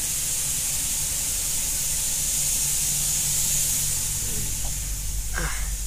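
Steady background hiss with a low hum underneath; no distinct event.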